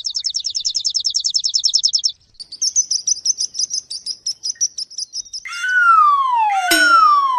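Bird chirping sound effect: a rapid high trill of short chirps, then a second, higher trill. Near the end, loud ringing tones slide down in pitch, one after another about a second apart.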